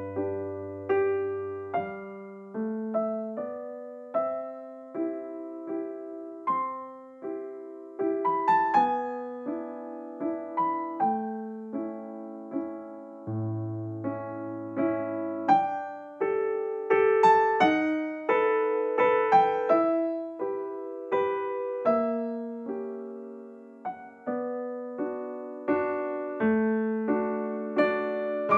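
Background piano music: a gentle, unhurried melody of single struck notes, each fading away, over held low notes.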